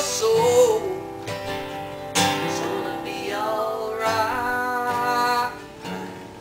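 Two acoustic guitars strummed together while a man sings. The singing stops about five and a half seconds in, and the guitars carry on more quietly.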